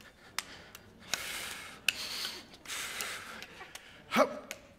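Heavy breathing into a body-worn microphone while juggling axes, with sharp taps about once a second as the wooden handles are caught. A short vocal grunt comes near the end.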